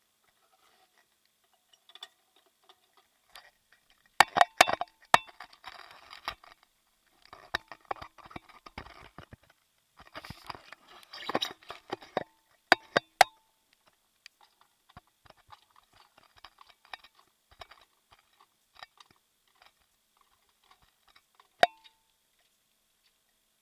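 Irregular clacking from a Peugeot 308: sharp clacks that come in clusters about four to five seconds in and again around twelve to thirteen seconds, with one more near the end, and crackly rattling between them.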